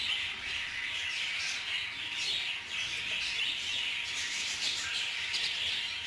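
Budgerigars calling in and around a nest box, nestlings and adult birds together: a continuous high, noisy chatter with no pauses.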